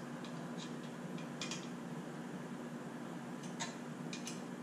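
Several faint clicks and taps of hands handling a 3D-printed plastic wood-burner mount and its cord as it is fitted to a CNC router clamp, over a steady low hum.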